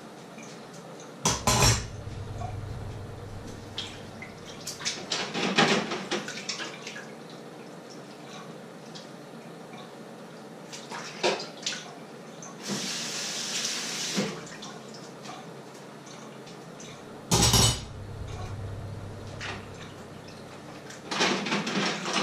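Dishes being washed by hand at a kitchen sink: pots and utensils clatter against the sink and each other several times, and the tap runs briefly about halfway through.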